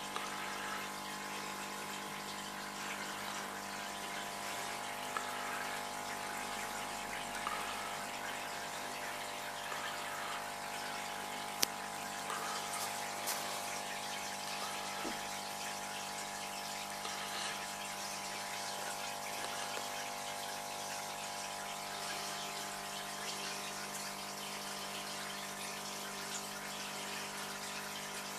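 Aquarium filter running: a steady rush of water with a constant hum underneath. A single sharp click sounds about twelve seconds in.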